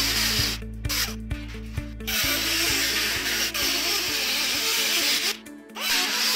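Pneumatic cut-off tool with a small abrasive wheel cutting sheet steel, a loud hissing whine that stops and restarts three times in the first two seconds and again around five and a half seconds. Background music with a steady beat plays underneath.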